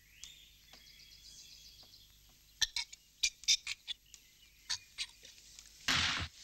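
Birds chirping: faint twittering at first, then a run of short, sharp chirps. A brief rough noise burst comes near the end.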